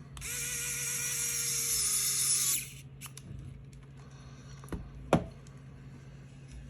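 Small electric screwdriver running for about two and a half seconds, driving a screw into a PS5 controller's plastic back housing; its whine drops slightly as the screw seats. Two light clicks follow.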